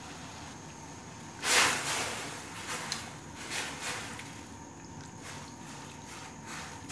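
Water boiling in a steel wok with raw chicken livers in it, a steady low bubbling. A short burst of noise comes about a second and a half in, then a few sharp clicks as metal tongs stir the livers against the wok.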